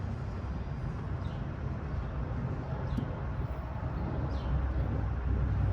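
BMW N52 3.0-litre inline-six in an E91 325xi idling steadily with the knock under diagnosis, which the owner suspects is either a failed AC compressor or rod knock.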